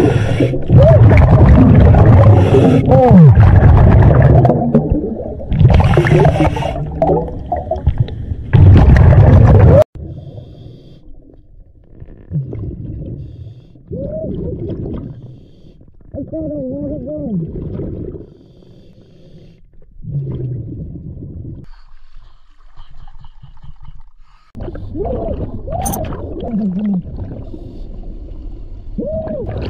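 Muffled underwater sound picked up by a diving camera: low gurgling rumble with wavering, swooping tones. It is loud for about the first ten seconds, cuts off abruptly, then carries on much quieter and duller.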